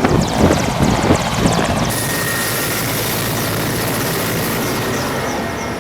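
Helicopter running, its rotor chopping rapidly and evenly; about two seconds in the sound changes abruptly to a steadier, brighter rush of noise with a faint high tone.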